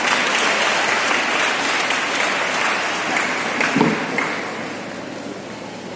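Audience applauding, fading away over the last two seconds.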